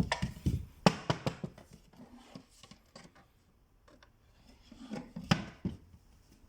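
Handling knocks and clicks of hard objects, wood among them, being moved and set down: a quick cluster of knocks in the first second and a half, then another group of knocks a little after five seconds.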